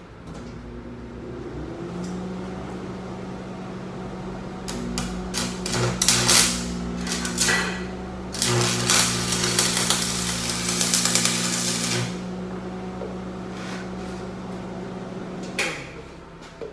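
Stick-welding arc struck and run with the welder's amperage turned up hot. It crackles and sizzles in two loud spells over a steady hum, then cuts off near the end.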